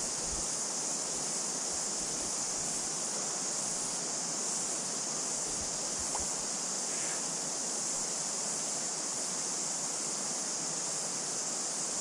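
Steady rush of a river running over stones, with an unbroken high drone of cicadas above it.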